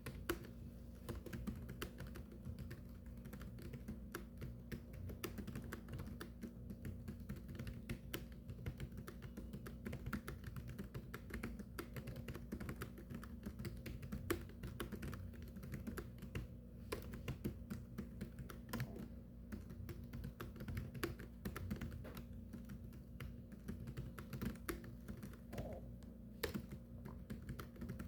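Continuous fast typing on a keyboard, many key clicks a second without a break, over a low steady hum.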